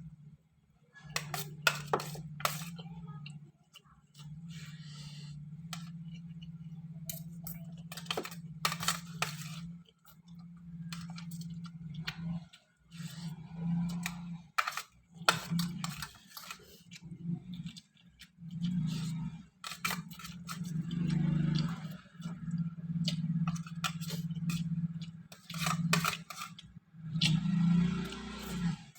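Eating instant noodles and chicken: cutlery clicking and scraping against a bowl in many short sharp clicks, with chewing, over a low hum that breaks off now and then.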